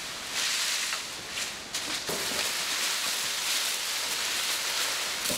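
Leaves and branches rustling steadily, with a few faint clicks.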